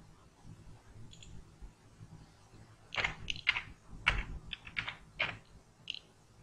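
Computer keyboard keys tapped in a quick run of about seven keystrokes, starting about three seconds in, as a short word is typed; a faint mouse click comes before them.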